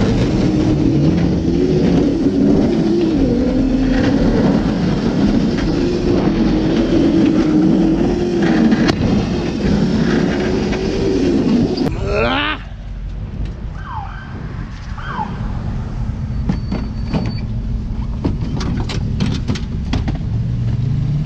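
Drift kart's motor whining, its pitch wavering up and down with speed, until it cuts off with a quick pitch sweep about twelve seconds in. After that there is quieter background with a few short squeaks and clicks.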